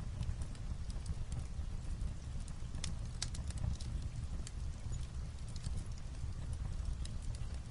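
Wood fire crackling in a fireplace, with sharp irregular pops, mixed with light rain on a roof over a steady low rumble.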